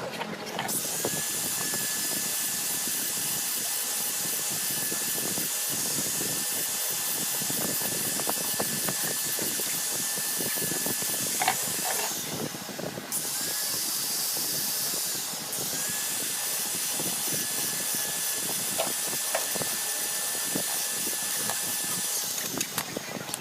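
A small high-speed electric power tool runs steadily with a high hiss and whine. It spins up about a second in, slows briefly and spins up again past the middle, and stops near the end.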